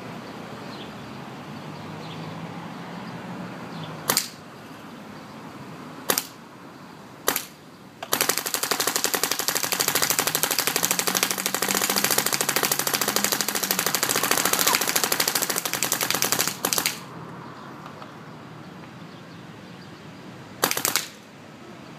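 MacDev Clone VX paintball marker firing: three single shots a second or two apart, then a rapid string of shots for about eight seconds, and one last single shot near the end.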